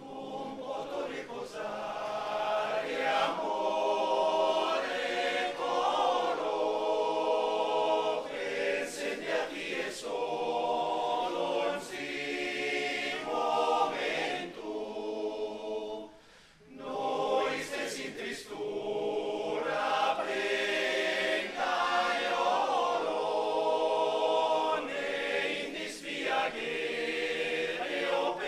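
Men's choir singing a cappella in several voice parts, entering together at the conductor's cue at the start; the singing breaks off briefly about halfway through between phrases, then carries on.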